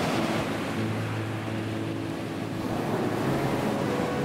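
Pacific surf breaking and washing up a sandy beach: a steady rush of water, strongest in the first second or so, then easing a little. Faint held low tones of background music sit underneath.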